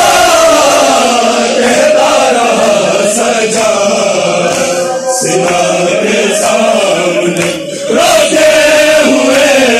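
A group of men chanting a mourning lament (nauha) in unison, with chest-beating (matam) slaps keeping time about once a second.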